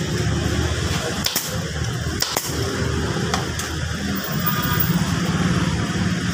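A steady low motor rumble, with a few sharp clicks about one to two and a half seconds in.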